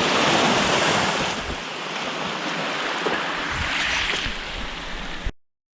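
Small sea waves washing onto a sandy beach in a steady hiss, with some wind on the microphone; the sound cuts off suddenly about five seconds in.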